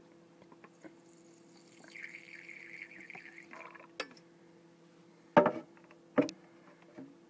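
Lighter fluid squirted from its can into a Zippo lighter: a hissing stream lasting about two seconds. It is followed by a sharp click and then two loud knocks about a second apart.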